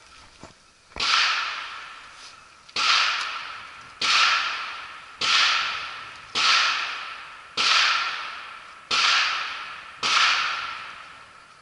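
Ruger 10/22 semi-automatic .22 LR rimfire rifle firing eight shots in a slow, steady string, about one shot every 1.2 seconds. Each shot is a sharp crack trailing off over about a second.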